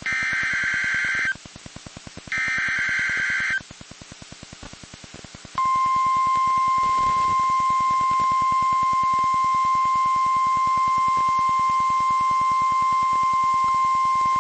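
NOAA Weather Radio emergency alert. Two bursts of the SAME digital header, a shrill warbling data tone lasting about a second each, are followed a few seconds later by the steady 1050 Hz warning alert tone, held for about nine seconds. That tone signals that a warning is about to be broadcast.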